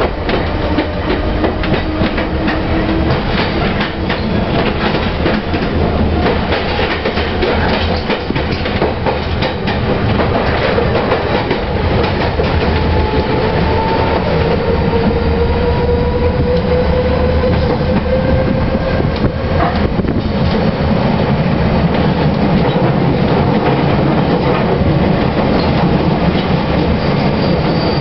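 London Underground C Stock train running at speed, heard from inside the carriage: a steady loud rumble of wheels on rail with rapid clicking over the track. Through the middle, a whine slowly rises in pitch.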